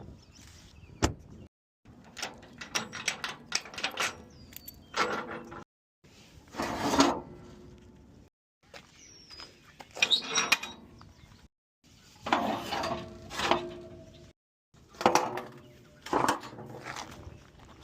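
Metal clanking and clicking with ringing tones, in several short clips that each start and stop abruptly, typical of tie-down and ratchet work on a car hauler trailer.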